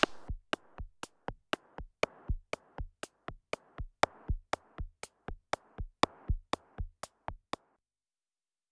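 Background music reduced to a drum machine beat alone, even hits at about four a second, which stops about seven and a half seconds in.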